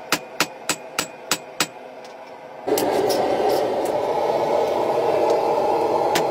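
Hand hammer striking red-hot steel for a Yakut knife blade on an anvil, six sharp ringing blows about three a second, stopping after a second and a half. From a bit before the middle a steady rushing noise of the forge takes over while the blade reheats, with a few light clinks and renewed hammer blows right at the end.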